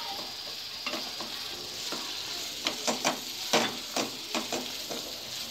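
Chicken kebab pieces in Manchurian sauce sizzling in a kadai over a high flame while a spoon stirs them, with a string of clinks and scrapes of the spoon against the pan that come more often in the second half.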